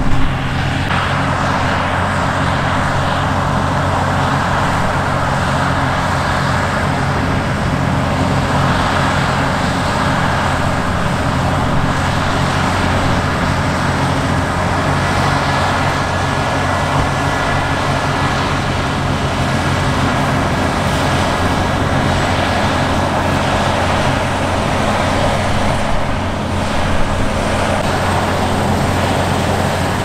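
Claas Lexion 8900 combine harvester running steadily under load while cutting and threshing grain: an even engine drone mixed with the rushing noise of the threshing machinery and cutterbar.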